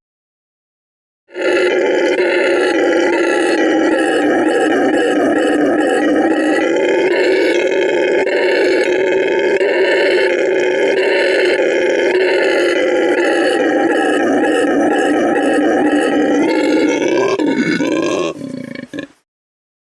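Howler monkey roaring: one long, continuous roar that starts about a second in, holds steady for some sixteen seconds and breaks off near the end.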